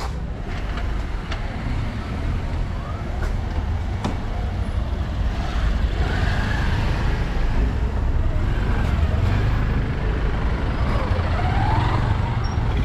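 Street traffic noise: car and scooter engines running close by in a steady low rumble, with faint higher sounds drifting in and out over it.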